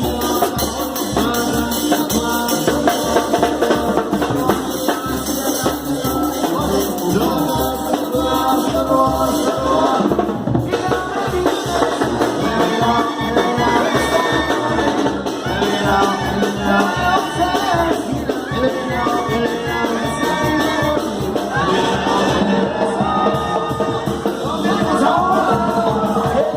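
Upbeat Latin dance music with singing over a steady drum beat.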